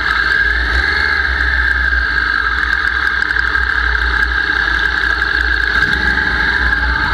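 Yamaha YZF-R1 motorcycle's inline-four engine running steadily at low revs, close up to the onboard camera, with no hard revving.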